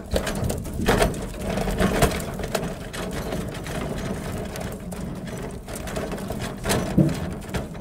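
Fish thrashing in the bottom of a metal boat, their tails drumming a rapid rattle on the hull. Sharp knocks stand out about a second in, about two seconds in and near the end as more fish from the trap land in the boat.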